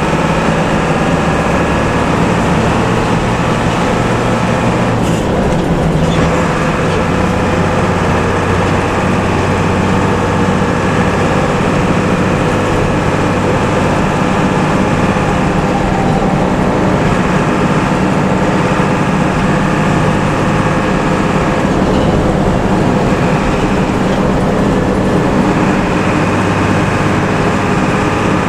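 A bus under way: a steady engine drone with road and tyre noise, the engine note changing about five seconds in.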